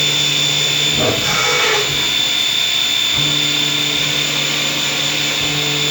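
CNC machine running: a steady high-pitched whine over mechanical noise, with a lower motor hum that drops out about a second in and comes back around three seconds in as the machine changes its movement.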